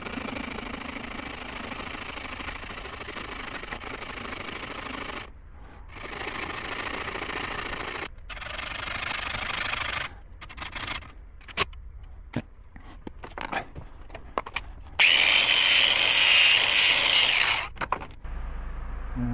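A hacksaw cuts through a thin metal fuel standpipe clamped in a vice, making an angled 45-degree cut. It goes in steady stretches with short pauses, then in scattered strokes. Near the end a much louder steady noise runs for about two seconds.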